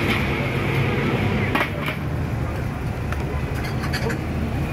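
Busy street-stall ambience: a steady low hum of traffic under background crowd chatter, with a few short clinks of bowls and utensils at the porridge cart.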